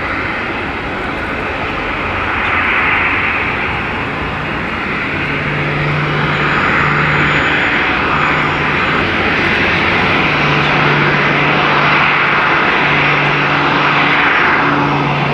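Jet engines of a Boeing 737-800 airliner running: a steady rushing noise that grows gradually louder, with a low hum that comes and goes.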